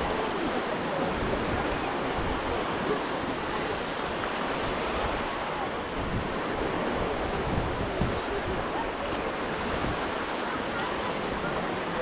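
Steady wash of small sea waves on a beach, with wind rumbling on the microphone.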